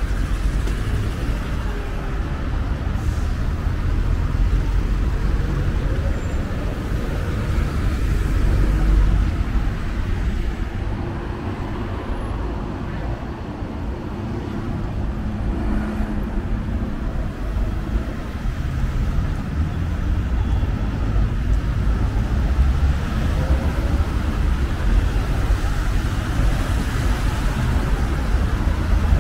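City street traffic: cars and other motor vehicles passing with a steady rumble of engines and tyres, swelling louder about nine seconds in.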